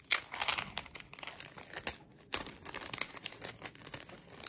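Crinkling and rustling of clear plastic wrapping and paper as a bundle of stickers is handled: a run of short crackles, with a brief pause about two seconds in.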